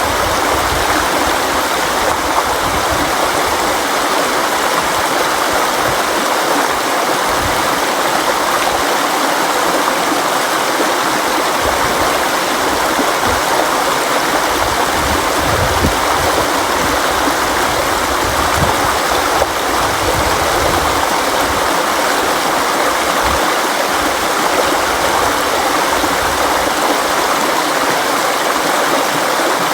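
River water flowing and rushing steadily over rocks, an even, unbroken wash of noise.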